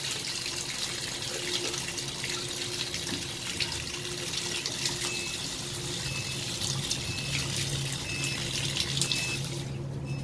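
Water running steadily from a chrome bath mixer tap's spout and splashing into the bathtub, cut off suddenly as the tap is shut just before the end.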